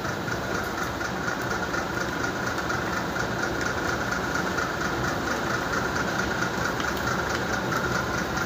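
A small motor running steadily, with a thin high whine and a fast, light ticking.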